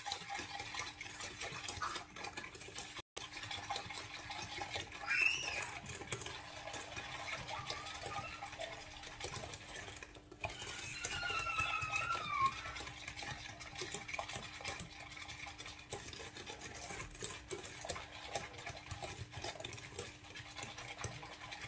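Wire whisk stirring chocolate pastry cream in a stainless steel saucepan, its wires scraping and clicking rapidly against the metal. Two short whistle-like sounds that glide in pitch come in about five and eleven seconds in, the first the loudest moment.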